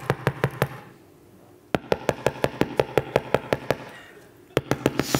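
Rapid, even knocking on a door, about six or seven knocks a second, in runs of about two seconds separated by short pauses.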